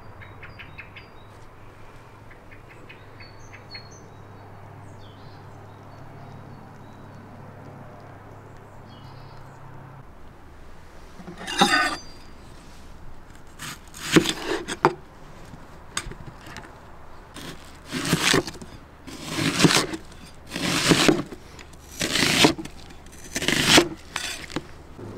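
Large kitchen knife slicing a whole white onion into rings on a bamboo cutting board: a series of sharp cuts, roughly one a second and some in quick pairs, starting about halfway through. Before the cuts there is only a low steady hum.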